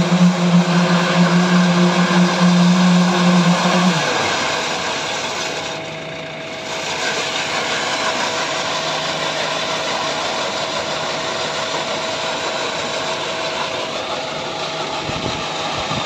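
Concrete road-paving machine with its poker vibrators and a JCB backhoe running steadily, a dense mechanical din. A low steady hum cuts off about four seconds in while the machine noise carries on.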